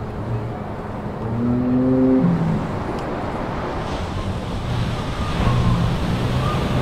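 Steady rumbling roar of wind and surf over a rough sea, with low held tones underneath and a few faint higher tones near the end.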